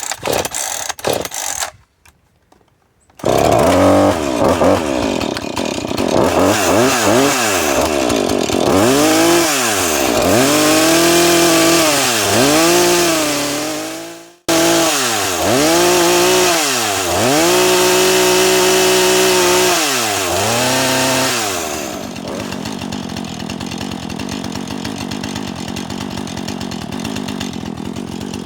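Husqvarna 440e chainsaw's two-stroke engine being pull-started: a few short pulls, then it catches about three seconds in and is revved up and down again and again. It cuts off abruptly near the middle and comes straight back, revving and holding high, and in the last quarter it settles into a steadier, lower running sound.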